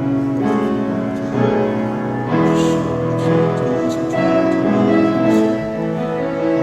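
Slow instrumental music on a keyboard, moving from one held chord to the next every second or so.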